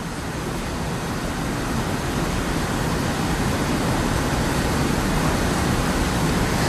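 Steady rushing noise from the soundtrack of a recorded live-event video being played back, slowly growing louder.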